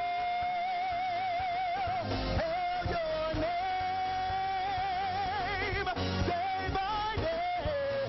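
Praise-and-worship singing: a lead voice holding long, wavering notes with vibrato over steady instrumental backing, with brief breaks between phrases.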